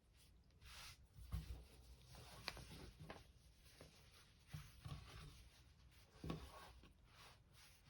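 Faint handling sounds: irregular rustling and scattered light clicks and taps, with no steady machine running.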